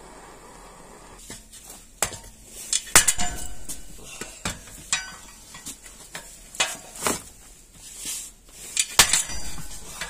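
Gas torch hissing for about a second, then irregular sharp metallic knocks and clanks, some ringing briefly. These are a torch-heated spoked enduro motorcycle wheel rim being worked on an anvil to straighten a dent.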